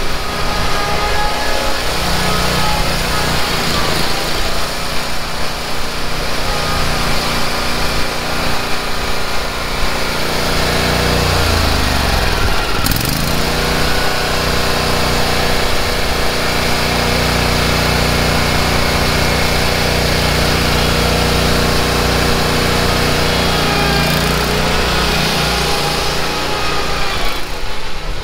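Gas engine of a Yakta stand-on zero-turn mower running steadily close up. Its pitch dips and climbs back once, about halfway through.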